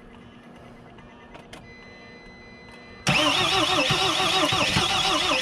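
Mercedes Sprinter diesel engine turning over on the starter. It cuts in suddenly about three seconds in with a loud, rhythmic churn. The engine is trying to catch but not yet running, with air still in the fuel system after a fuel pump replacement.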